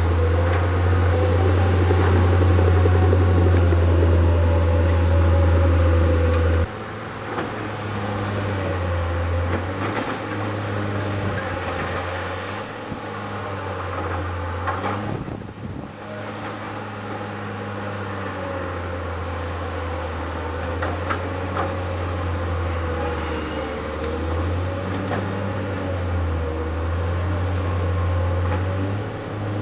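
Diesel engines of tracked excavators and a bulldozer working rubbish in a cutting, running steadily with their pitch rising and falling as they take load. A heavy low drone is loud at first and drops away suddenly about seven seconds in.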